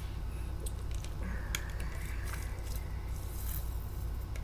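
A person drinking a cold drink: faint sips and swallows with a few small clicks, over a steady low hum.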